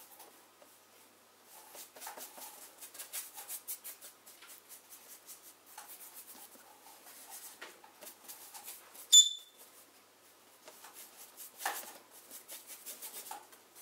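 Paintbrush scrubbing thinned oil paint across a painting board in quick, repeated strokes. About nine seconds in comes one short, sharp, high-pitched chirp from a pet parrot, the loudest sound here.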